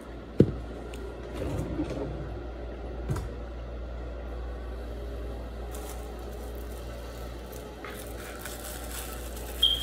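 Hands handling something at a kitchen counter: a sharp knock about half a second in, then softer knocks, rustling and scraping, over a steady low hum.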